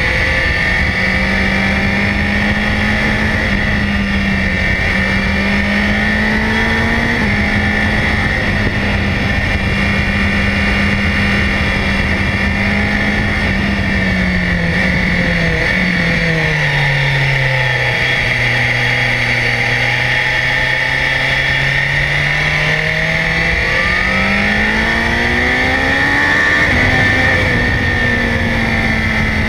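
BMW S1000XR's inline-four engine running under way, recorded from a bike-mounted camera. It holds a steady note, falls in pitch about halfway through, climbs again, then steps down sharply near the end.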